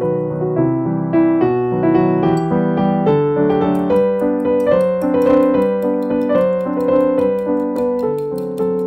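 Background piano music: a gentle melody over steady accompanying notes.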